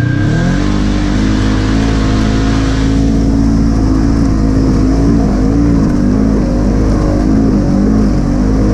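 Polaris RZR side-by-side engine revving up over the first half second, then running at a steady pace on the trail, its pitch wavering slightly as the throttle is worked.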